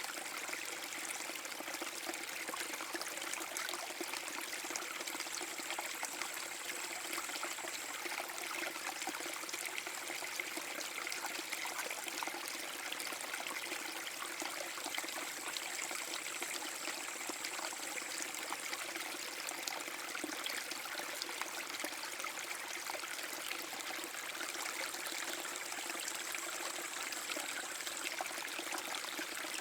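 Small forest-brook waterfall: water flowing and splashing steadily over the drop, an unbroken rush with a trickling edge.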